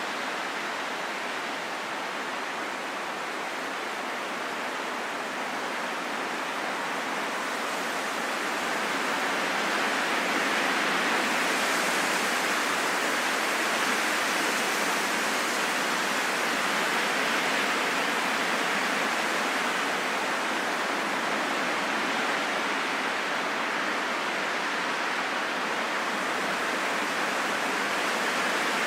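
Steady rushing wind, an even hiss with no gusts or breaks, that swells louder about ten seconds in and then holds.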